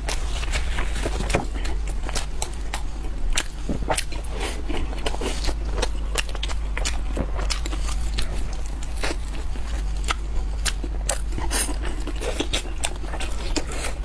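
Close-miked eating: a steady, irregular run of sharp crunches and crackles from biting and chewing crisp food, over a faint steady low hum.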